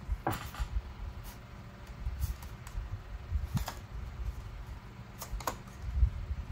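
Paper and craft pieces handled on a tabletop: low bumps and rustling with a handful of light, separate clicks.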